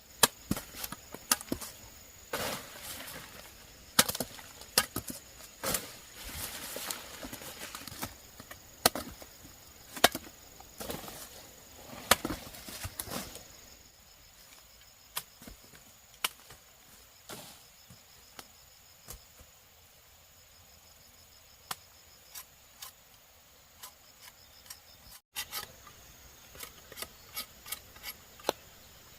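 Irregular sharp chopping strikes, thick and fast for about the first half, then sparser and softer. A steady high insect chirring runs underneath.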